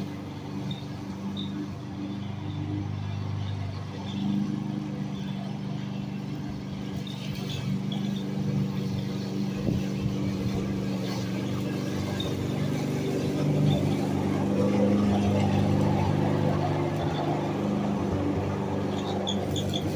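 Gasoline push lawn mower engine running steadily while cutting grass, getting louder in the second half as the mower passes close by.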